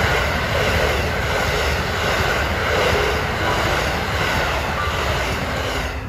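A ten-car KiHa 85 series diesel multiple unit passing close by at speed: the diesel engines under the cars running and the wheels rolling over the rails in one steady, loud rush.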